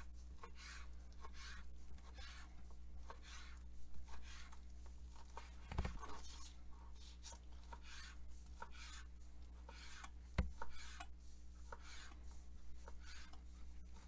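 Kitchen knife slicing ham into thin strips on a plastic cutting board: repeated short scraping strokes, one to two a second, with two louder knocks, about six seconds in and about ten seconds in.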